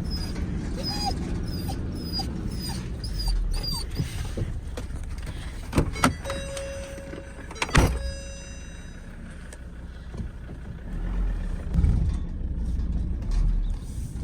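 A vehicle runs with a steady low rumble while a dog gives a run of short, high yips over the first few seconds. Two sharp knocks and a held tone about two seconds long follow midway.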